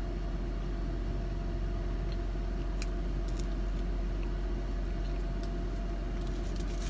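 Steady low hum of a car idling, heard from inside the cabin, with a few faint clicks about three seconds in.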